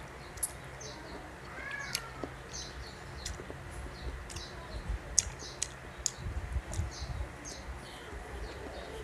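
Close-up chewing of Indian mango slices: many small, sharp wet mouth clicks and smacks throughout. A short chirp-like call about two seconds in.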